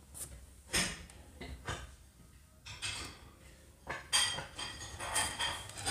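Decorative objects being set down and shifted on a gold-rimmed tray on a stone tabletop: a series of light clinks and knocks, each ringing briefly.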